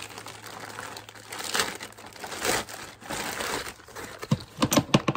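Crinkling and rustling of a clear plastic bag as a fabric fanny pack is pulled out of it and handled, with a few sharp clicks near the end.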